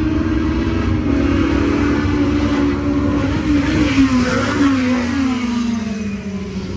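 Several small-engined touring race cars passing on a wet track. Their engine notes slide down in pitch as they brake and downshift for the corner, with a hiss of tyre spray loudest about four seconds in.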